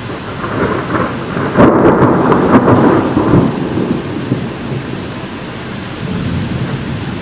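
A roll of thunder, loudest about one and a half to three seconds in and then fading, over steady rain.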